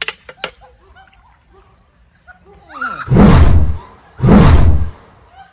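Two loud, distorted yells, each lasting most of a second and about half a second apart, a little past the middle, with a couple of sharp clicks right at the start.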